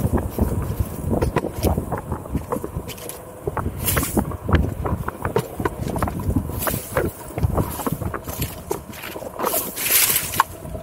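Onewheel electric board ridden fast over a bumpy sandy trail: dense, irregular knocking and rattling from the ride, with wind buffeting the microphone. Near the end a brief brushing hiss is heard as the camera passes close by palmetto fronds.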